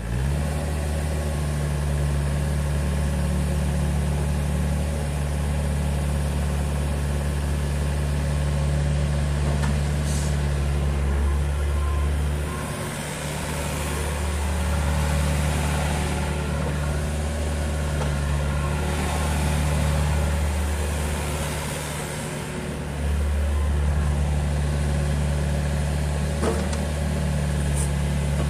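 Neuson 6003 RD mini-excavator's diesel engine running steadily while the boom, arm, bucket and swing are worked. Its level dips briefly twice, about halfway through and again some eight seconds later.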